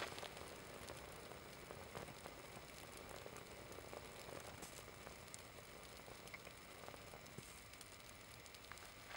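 Faint, quiet crackling and sizzling of small flames eating into a synthetic polyester/nylon sports shirt, with scattered light ticks over a low steady hiss.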